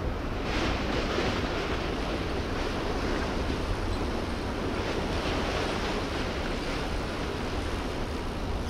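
Steady low rumble and wash of churned water from a large ro-ro car ferry moving slowly close by, with wind buffeting the microphone.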